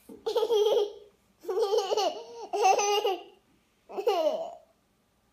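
A young child laughing in four bursts, the last one sliding down in pitch.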